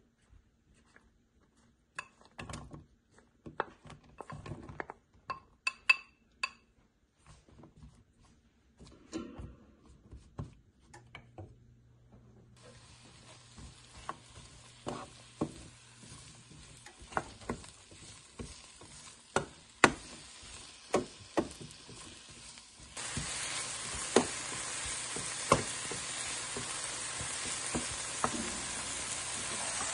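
Sliced mushrooms dropping into a non-stick frying pan, then a wooden spatula clicking and scraping against the pan as they are stirred. About twelve seconds in a faint sizzle of mushrooms frying in oil begins, and it turns abruptly louder a little past the twenty-second mark.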